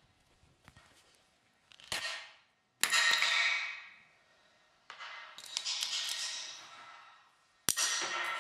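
Processed, reverberant sounds of a brush drawing ink across window glass: a light tap and a short hit early on, then three strokes, each starting suddenly as a swish and fading over a second or more, the loudest about three seconds in.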